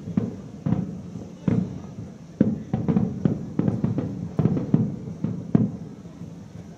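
Aerial firework shells bursting in quick succession, about a dozen sharp bangs, each followed by a low rolling echo. The bangs come thickest in the middle and stop near the end, leaving a fading rumble.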